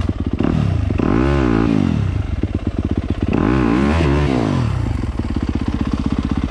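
Dirt bike engine running on a descent, its pitch rising and falling twice, about one and four seconds in, then settling to a steady low beat near the end.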